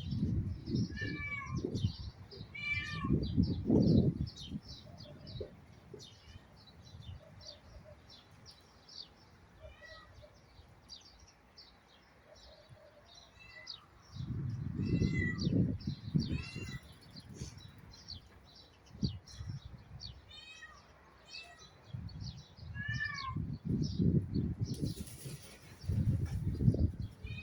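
Peafowl in an aviary giving short, repeated mewing calls over steady chirping of small birds. Bouts of loud low rumbling noise come and go near the start, the middle and the end.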